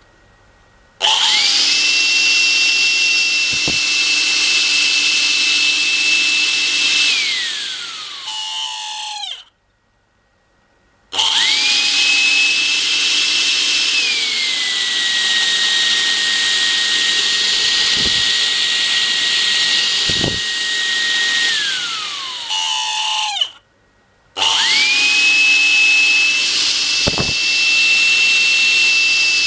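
Makita CL182FD cordless vacuum cleaner's motor switched on three times, each time whining up to a steady high speed. The first run stops and winds down. The second steps down to a lower, slower setting partway through before winding down. The third start comes near the end. A few light clicks fall between the runs.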